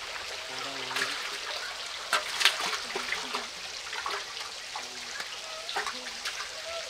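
Water running and trickling steadily, with irregular splashes and slaps as a rohu fish is handled in and lowered into a pot of water; the loudest splash comes about two and a half seconds in.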